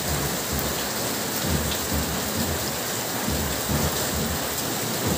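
Steady rain falling on garden foliage and surfaces, a continuous even hiss.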